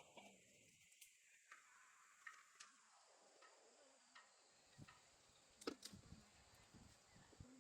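Near silence broken by faint, irregular clicks and taps, with a small cluster of them about six seconds in.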